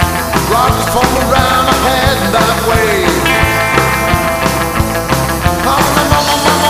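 Rock music: a steady, driving drum beat under a lead line that bends up and down in pitch.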